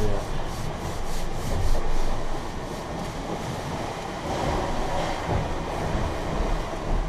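Sailcloth being rubbed by hand in quick repeated strokes, with a few low thumps as the fabric is handled, typical of pressing down a repair on the gennaker.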